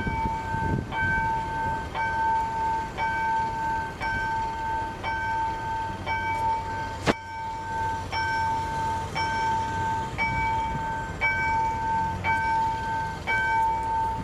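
Level-crossing warning bell ringing continuously, one bright tone re-struck at an even rhythm of just under two strikes a second. A single sharp knock cuts through about halfway.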